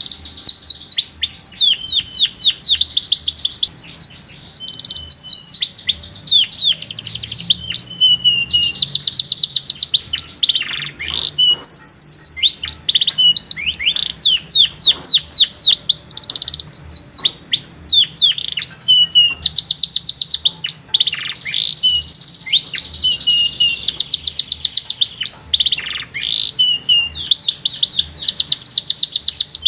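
Domestic canary singing a continuous song of rapid trills: runs of fast repeated high notes, each lasting a second or two before switching to a different note, with only brief breaks.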